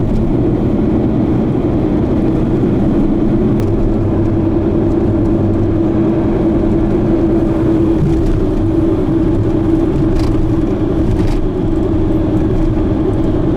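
Car driving at a steady speed, heard from inside the cabin: an even rumble of engine and tyres on the road with a constant low hum.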